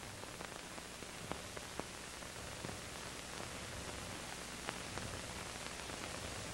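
Steady faint hiss with scattered small crackles and clicks: background noise of the soundtrack, no distinct machine or water sound.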